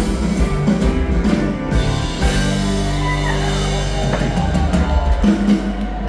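Live dansband playing an upbeat dance tune through the hall's PA, with drum kit, bass, electric guitars and keyboards.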